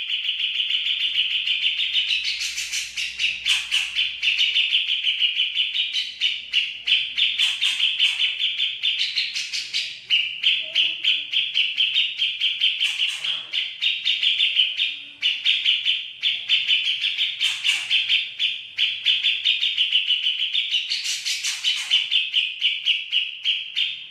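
Songbird chattering in a fast, continuous run of chirps, with a sharper call breaking in every few seconds.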